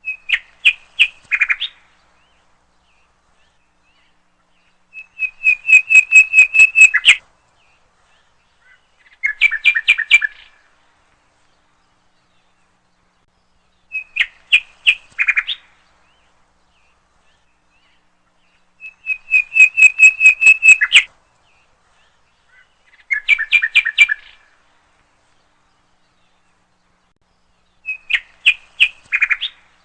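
A songbird singing: short phrases of quick chirping notes, each one to two seconds long, repeated every few seconds in the same few patterns with silence between.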